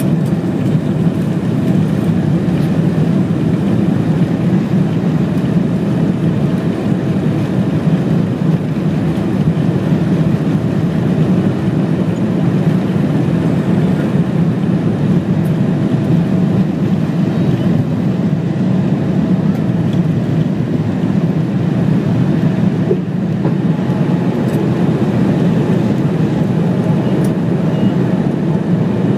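Cabin noise inside a Boeing 777-300 on takeoff: the engines at takeoff thrust and the rush of air give a steady, unbroken low rumble through the end of the takeoff roll and the liftoff.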